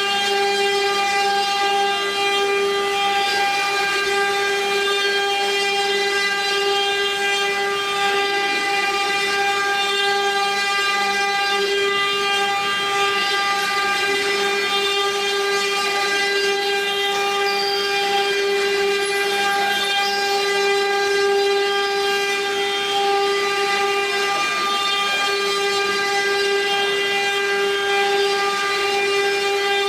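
A multi-spindle CNC router, its twelve spindles running together at speed while engraving cylinders: a steady machine whine holding one pitch, with a faint hiss of cutting beneath it.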